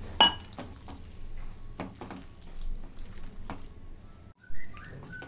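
A hand squishing and mixing thick, wet gram-flour batter in a ceramic bowl: irregular wet squelches and small clicks as the fingers work it, with one sharp click just after the start.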